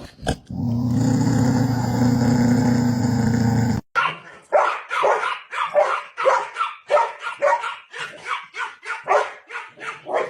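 A dog barking in a quick, steady run, two to three barks a second, through the second half. Before that, a steady hum cuts off suddenly about four seconds in.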